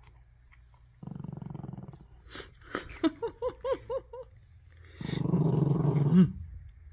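Small shaggy dog growling low at its food bowl while it eats: one growl about a second in, a louder one about five seconds in that bends upward at its end, with chewing crunches and a quick run of six short rising-and-falling vocal notes between them.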